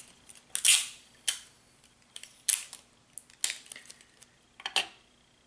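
Handling noise from hands moving plastic items close to the microphone, a clear roll of tape among them: a string of sharp clicks and short rustles at uneven intervals, the loudest about a second in.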